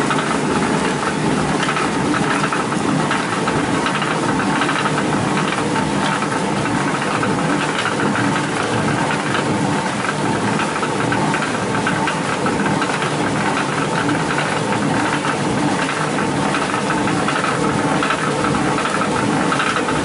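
Old water mill running, its millstones turning with a loud, steady, fast rattling clatter.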